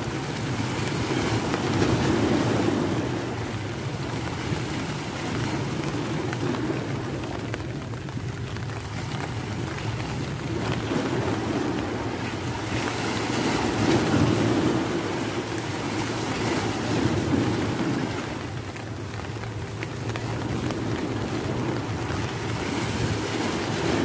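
Sea waves washing and breaking against the rocks of a breakwater, mixed with wind on the microphone: a steady rushing noise that swells and eases every few seconds.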